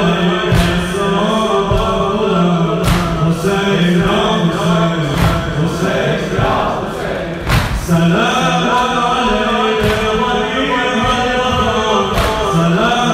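A male reciter chants an Arabic latmiya lament for Hussain, with the congregation singing along. Under it comes a sharp, unison strike of chest-beating matam about every two and a half seconds.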